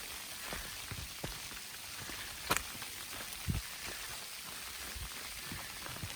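Steady patter of sleet and light rain, with scattered irregular taps and soft thumps and one sharper click about two and a half seconds in.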